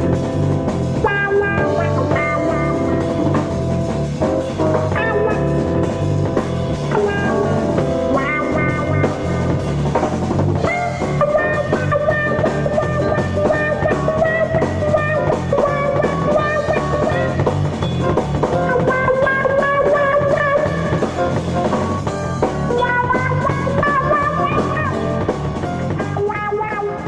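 Background rock music with drums and a lead guitar holding bending notes.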